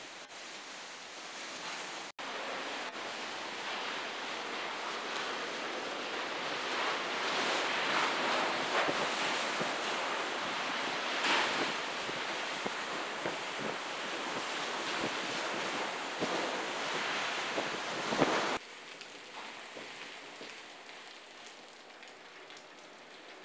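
Hurricane-force wind blowing through a building's broken doors and windows, a steady rush that swells into stronger gusts and drops to a quieter rush after a cut near the end.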